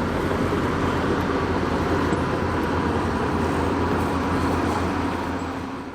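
Bulldozer's heavy diesel engine running steadily with a deep rumble, fading in and fading out like an inserted sound effect.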